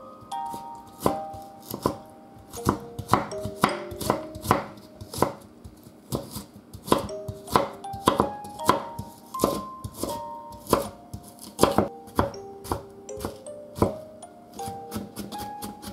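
Kitchen knife chopping lotus root on a wooden cutting board: irregular sharp strikes, coming faster near the end as the root is diced. A soft mallet-like melody plays underneath.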